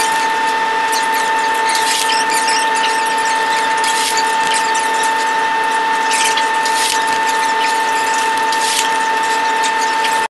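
A steady high-pitched whine held at one pitch, with crackling noise over it, cutting off suddenly near the end.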